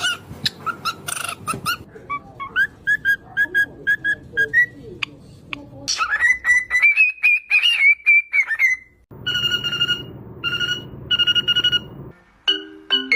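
Parrot whistling: a run of short pitched notes, then a long wavering whistle about six seconds in, then three held whistled notes near the end.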